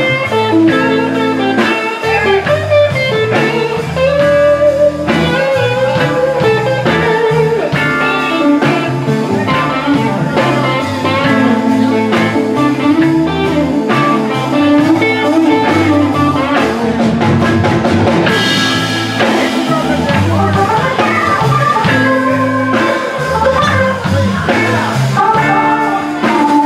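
Live electric blues: an electric guitar playing lead lines over a band with drums and a low bass line, with a cymbal crash about two-thirds of the way through.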